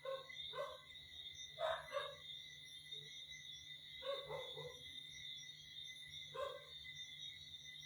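A dog barking faintly and far off, a handful of short single barks spread a second or two apart, over a steady high-pitched drone.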